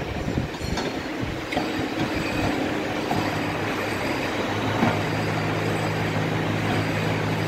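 Workshop machine motor humming steadily, with a few light metallic clicks and knocks in the first couple of seconds. A stronger, lower hum joins about five seconds in.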